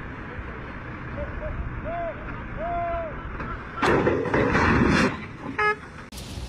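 Tipper semi-trailer toppling over onto its side while tipping its load: a loud crash and rumble lasting just over a second, starting about four seconds in, over a steady background rumble. A few short rising-and-falling tones come before it, and a brief beep just after it.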